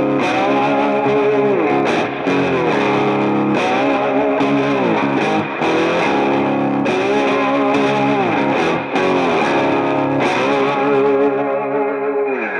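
Background music led by a distorted electric guitar, with notes that bend in pitch.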